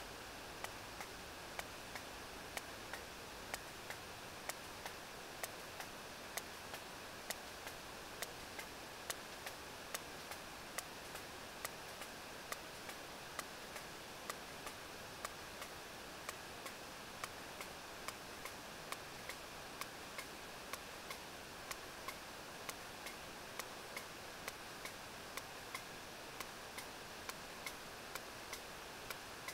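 Sperm whale echolocation clicks picked up by a deep-sea hydrophone: a regular train of sharp clicks, roughly two a second, over steady sea and hydrophone hiss. These are the whale's usual clicks, given while it forages at depth.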